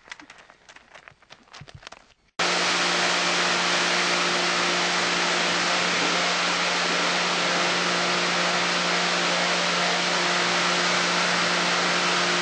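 A few seconds of a spotted saddle horse's hoofbeats on dirt, then a sudden switch to the loud, steady hiss of a hose spray nozzle washing the horse down, with a steady low hum underneath.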